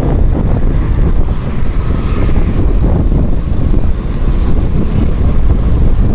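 Wind buffeting the phone's microphone on a moving motorcycle, a loud steady rumble with the bike's running sound mixed in.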